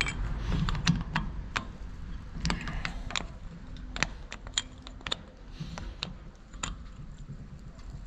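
Irregular metallic clicks and clinks of hand tools on an Opel Combo's rear disc brake caliper, as the piston is turned back into its bore to make room for new pads.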